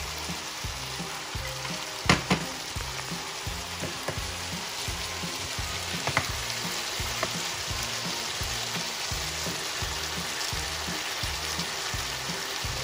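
Corn and bell pepper strips sizzling in an electric skillet while being stirred with a wooden spoon. Sharp knocks of the spoon against the pan come twice about two seconds in and once near six seconds. A steady low beat of background music runs underneath.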